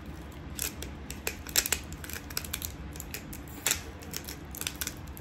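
Hand-twisted salt grinder crunching Himalayan pink salt crystals: an irregular run of crisp clicks and crackles as the grinder head is turned back and forth.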